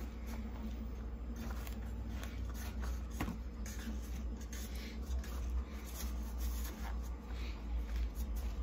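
Hands pressing and patting a crumbly mixture of crushed maisena biscuits and butter into a steel springform pan: soft, irregular rustling and scraping, with a few light taps. A steady low hum runs underneath.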